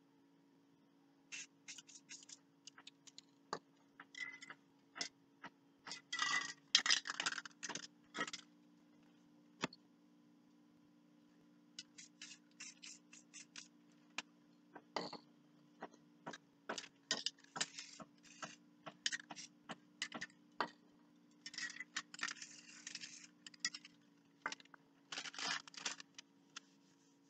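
Irregular clicks, taps and scrapes from spray paint cans and tools being handled on a work board, with several clusters of rapid clicking and rattling. A faint steady hum sits underneath.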